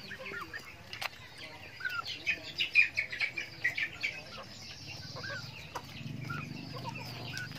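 Domestic chickens clucking and calling as they feed, with a dense run of sharp high-pitched calls about two to four seconds in.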